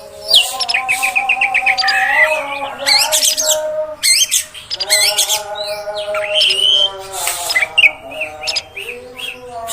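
Oriental magpie-robin (kacer) song: a varied, unbroken run of chirps, quick rattling trills and whistled glides. Under the song, a lower drawn-out tone comes and goes.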